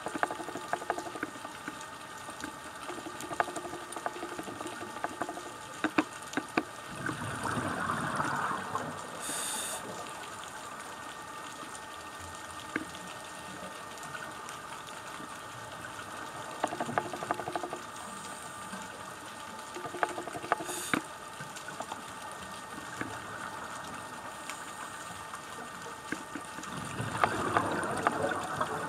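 Underwater sound of a scuba diver breathing through a regulator: two long rushes of exhaled bubbles, about a quarter of the way in and near the end, and short high hisses of the regulator, over a steady underwater background with scattered sharp clicks.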